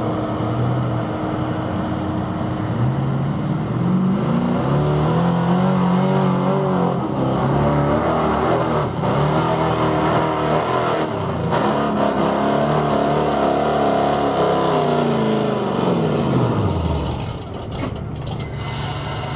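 Engine of a 1980s Ford F-series 4x4 pickup revving hard under load as it pulls a weight sled. The pitch climbs in the first few seconds, holds high with a couple of brief dips, then falls away as the engine is let off about seventeen seconds in.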